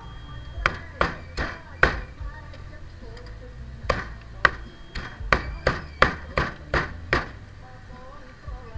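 A cleaver chops glazed grilled chicken on a round chopping block: four quick chops in the first two seconds, then a run of about nine chops at roughly three a second from about four seconds in.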